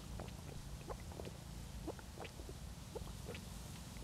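A person chewing a mouthful of stir-fried frog close to the microphone: irregular wet mouth clicks and smacks, about three or four a second.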